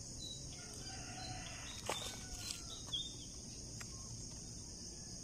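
A rooster crowing faintly over a steady high insect buzz, with a few short scrapes and taps of a small hand trowel digging into soil.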